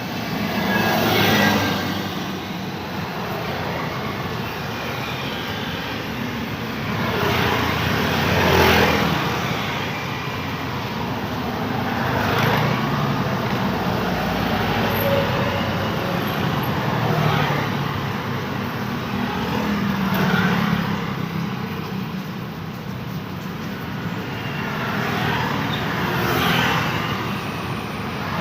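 Road traffic on a busy street, cars and motorbikes going past one after another over a steady rumble, each pass swelling and fading.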